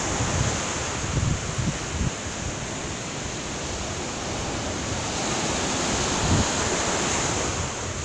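Small sea waves breaking and washing up a sandy beach in a steady surf hiss, with occasional low rumbles of wind on the microphone.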